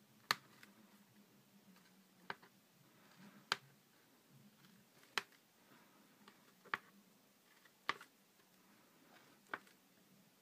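Seven sharp taps, one every one to two seconds, of a pointed stick held in the fist and jabbed down through a paper plan to mark guide dots.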